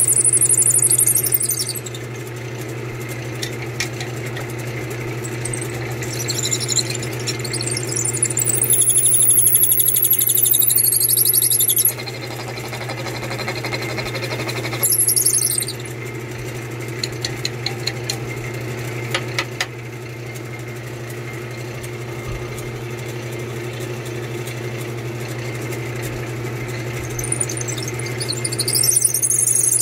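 Lathe motor running with a steady hum while a drill bit in the headstock chuck bores into a wooden chair spindle fed onto it by hand. The bit squeals at high pitch as it cuts: at the start, again for a few seconds near the middle, briefly after that, and once more near the end.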